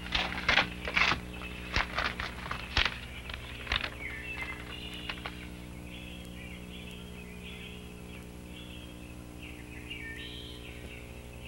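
Paper crackling and rustling for the first few seconds as an envelope is opened and a letter unfolded, then birds chirping through the rest, over a low steady hum.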